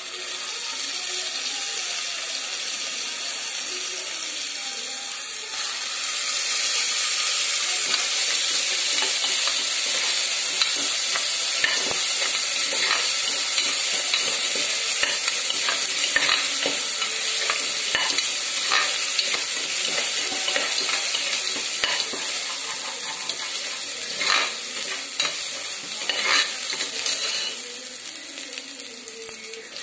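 Chicken frying in a metal pot with a steady sizzle that gets louder about six seconds in. A ladle stirs the pieces, clinking and scraping against the pot many times through the middle.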